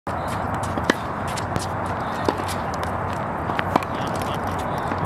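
Tennis balls being hit with rackets and bouncing on a hard court: a few sharp pops a second or more apart, over a steady background rush.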